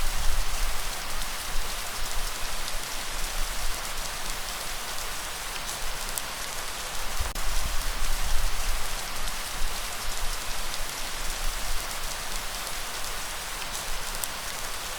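Light rain falling steadily, an even hiss with scattered drop ticks, under a low rumble of gentle breeze that swells and fades.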